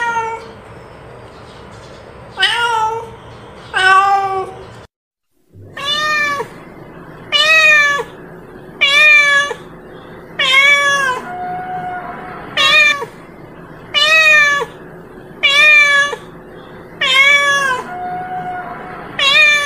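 A cat meowing over and over, about one meow every second and a half, each meow rising and then falling in pitch. The sound cuts out for about half a second around five seconds in, and a few softer, lower, flatter mews fall between the later calls.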